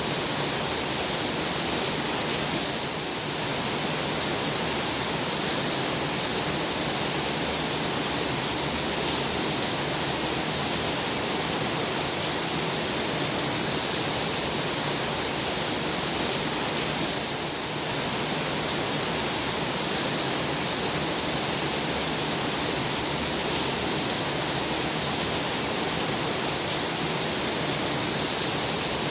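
Heavy rain falling steadily, an even dense hiss with no thunder, easing very slightly for a moment twice.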